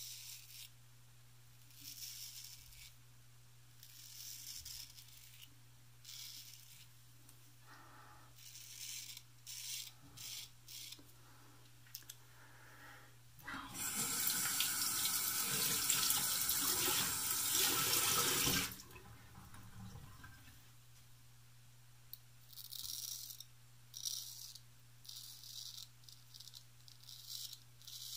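Wade & Butcher 7/8 Celebrated full-hollow straight razor scraping stubble through lather in short rasping strokes. About 13 seconds in, a tap runs for about five seconds while he bends to the sink. More razor strokes follow near the end, over a steady low hum.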